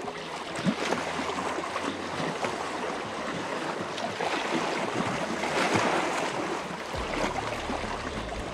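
Small choppy waves lapping and splashing against a rocky riprap shoreline, a steady wash of water noise that swells a little about two-thirds of the way through.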